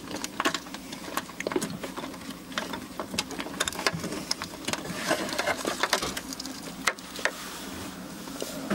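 Irregular clicks and small rattles of plastic wiring connectors and a rubber grommet being handled and pushed into place in a truck door's inner panel.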